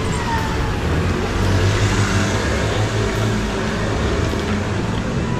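Motor vehicle running close by in street traffic: a steady low engine drone, with a whine that falls in pitch at the start.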